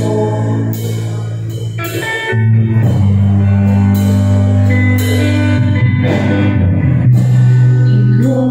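Live band playing a slow song intro: long held low notes that change about two seconds in, with electric guitar and a light beat about once a second.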